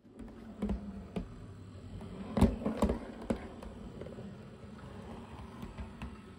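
Dapol O gauge LSWR B4 model tank locomotive running along the track: a steady light buzz from its motor, with several sharp clicks and knocks in the first half, the loudest about two and a half seconds in.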